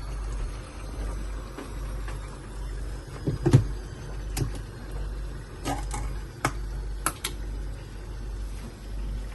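Kitchen clatter from cooking: a string of separate knocks and clicks, about eight over four seconds, the heaviest a thud about three and a half seconds in, over a steady low hum.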